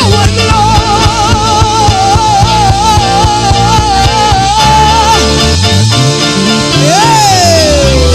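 Live gospel worship band playing instrumentally: a lead melody held with vibrato over bass and drums, then a long downward slide in pitch near the end.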